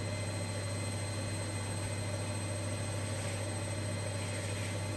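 Washing machine on its spin cycle, running steadily with a low hum.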